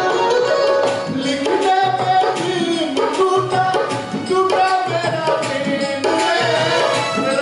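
Shiva bhajan, a devotional song, with hand-drum rhythm under a wavering melodic line.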